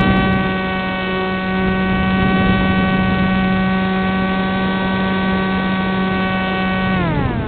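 Tech One Popwing RC flying wing's electric motor and propeller running at steady throttle, a steady buzzing whine heard up close through the camera on the wing. About seven seconds in the pitch slides down as the throttle is eased back.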